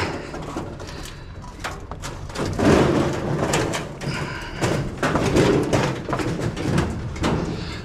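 Stainless-steel barbecue grill dragged along on a locked wheel, scraping and rattling with repeated knocks.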